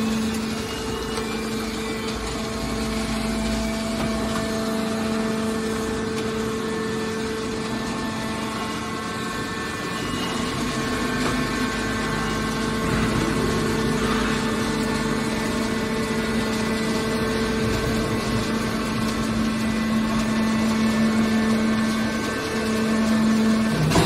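Scrap metal baler's hydraulic power unit running steadily with a constant mechanical hum.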